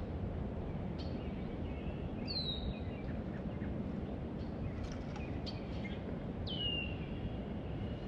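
Steady low outdoor background noise with birds calling: two clear downward-sliding whistled calls, one a couple of seconds in and one near the end, and a few faint chirps.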